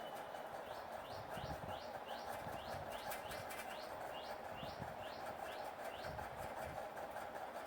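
Ribbon pakoda dough frying in hot oil on a medium flame: a steady sizzle with fine crackles. Over it a bird chirps in quick, repeated rising notes, about two or three a second, stopping about two-thirds of the way through.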